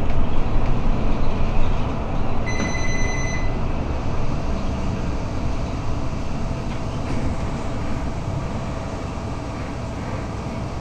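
Cabin noise of a new articulated city bus on the move: steady low engine and road rumble that slowly eases off. A single electronic beep lasts about a second, some two and a half seconds in.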